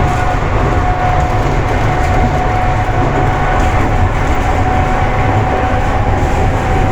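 ED4M electric multiple unit running at speed, heard from inside its vestibule: a steady, loud rumble of wheels and running gear with a steady whine over it.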